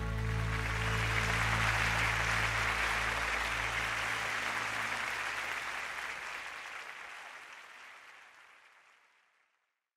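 Live concert audience applauding at the end of a song, with the band's last held chord dying away under it for the first few seconds. The applause fades out to silence near the end.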